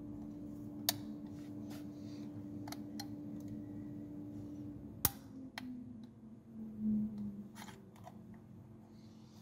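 Sharp plastic clicks and snaps as a small screwdriver pries at the latch of a plastic decoder box's connector and the plug is worked by hand; the two loudest snaps come about a second in and just past halfway, with lighter ticks between. A steady low hum runs underneath and fades out about halfway.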